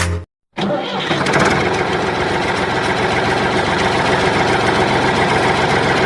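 An engine starts abruptly after a brief silent break and runs steadily at a constant pace.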